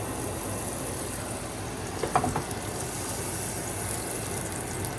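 Butter sizzling steadily in a hot pan, with a few brief clinks about two seconds in.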